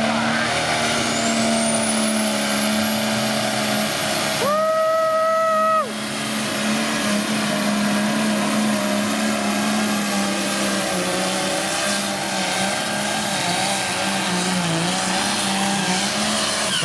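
Turbocharged diesel engine of a pulling vehicle running hard and steady, with a high turbo whine that climbs over the first two seconds and then holds. A horn sounds for about a second near the middle.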